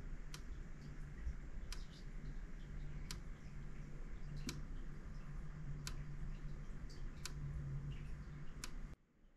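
JVA MB1.5 mains/battery electric fence energiser pulsing after being switched on: a sharp click about every one and a half seconds, seven in all, over a low steady hum. Each click is the energiser firing an output pulse.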